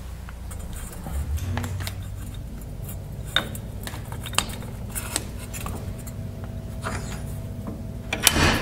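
Setting a pop rivet with a hand rivet gun in a steel headlight bucket: scattered light metallic clicks as the rivet and tool are handled, then a louder, short burst of sharp clicks near the end as the gun works the rivet. A steady low hum runs underneath.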